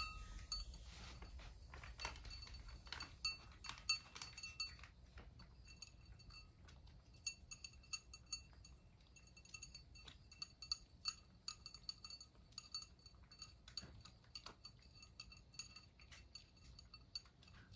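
Cat eating from its food dish: faint, quick, irregular small clinks and ticks against the dish.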